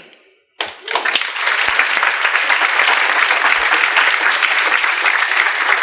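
Audience applauding: many people clapping, starting suddenly about half a second in and holding steady.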